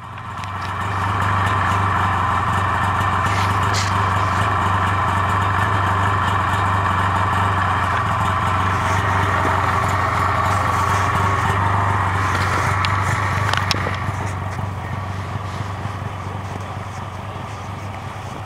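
Snowmobile engine idling steadily with a low hum, dropping a little in level about fourteen seconds in.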